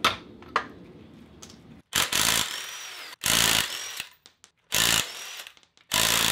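Cordless impact wrench run in four short bursts, each about half a second to a second long, loosening nuts on a rear hub. Two sharp metal clinks come in the first second.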